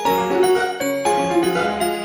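Background music: a light melody of short mallet-like notes over a keyboard.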